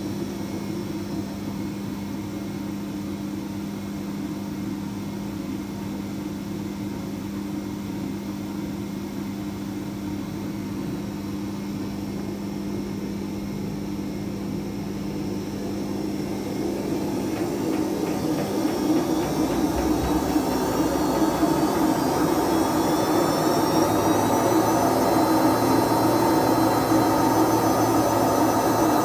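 Whirlpool/Vestel washing machine running with worn drum bearings: a steady hum, then from a little past halfway the drum speeds up into spin, with a rising whine and the noise growing louder before levelling off at the higher speed. The owner says the bad bearings make it louder and louder.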